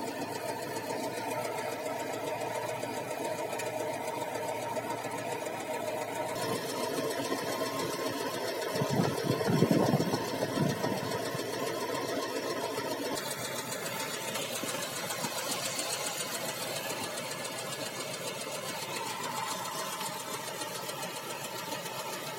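Engine running with a fast, even knock like a clock ticking, which is the strange knock the owner is investigating. It swells louder briefly about nine seconds in.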